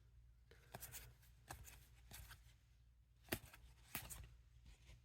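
Faint handling of trading cards: scattered soft ticks and slides as cards are flipped through by hand, the sharpest tick about two-thirds of the way in, over a low steady room hum.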